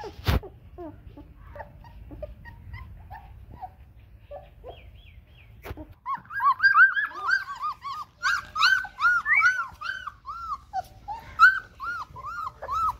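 Doberman puppies squealing and whining: quieter scattered puppy noises at first, then from about halfway a rapid run of short, high-pitched squeals, several a second. A sharp knock sounds just after the start.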